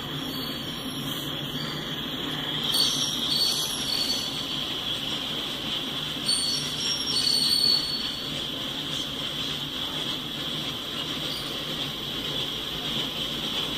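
Freight train of covered hopper cars rolling slowly past, its steel wheels squealing on the rail in a steady high squeal. The squeal grows louder about three seconds in and again for a couple of seconds around the middle, over a low rolling rumble.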